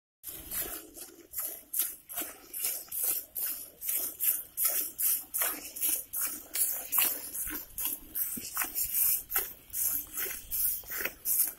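Milk jets from a water buffalo's teats squirting into a steel bucket as it is milked by hand. The squirts come in an even rhythm, about two to three hissing spurts a second.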